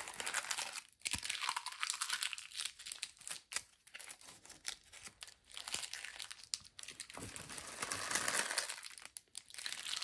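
Small plastic bags and packaging from a diamond painting kit being crumpled and gathered up by hand, a dense crinkling full of sharp crackles that dips briefly about a second in and again near the end.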